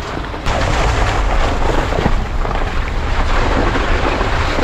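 Car's engine running under load while its tyres churn through wet snow and slush, a loud rushing noise over a low rumble that swells about half a second in.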